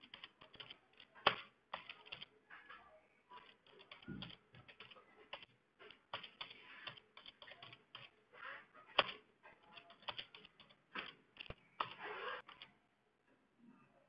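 Typing on a computer keyboard: a run of irregular key clicks at an uneven pace, stopping shortly before the end.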